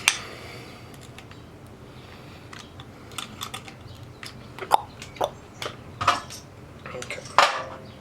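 Small metallic clicks and clinks of hand tools and wire being handled while wiring an electrical receptacle in a metal box, scattered and irregular, with sharper knocks right at the start, about halfway through and near the end.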